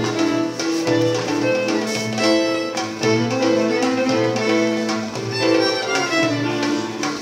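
Live string-band dance music led by a fiddle playing a melody of held notes, over a low bass note repeating about once a second.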